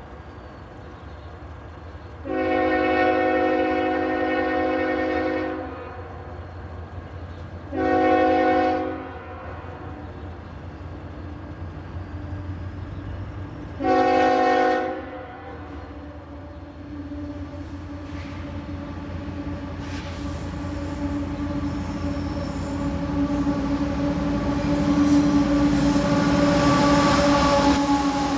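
CSX ES44AH diesel locomotive's horn sounding for a grade crossing: one long blast about two seconds in, then two short blasts. After that the locomotive's engine and the train's wheels grow steadily louder as it comes close and passes.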